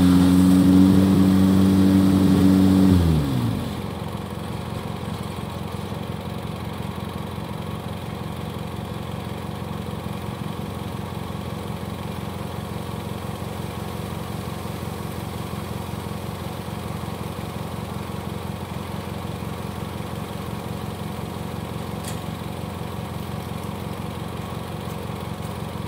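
Riding lawn mower's small engine running at high throttle, then dropping back about three seconds in and idling steadily.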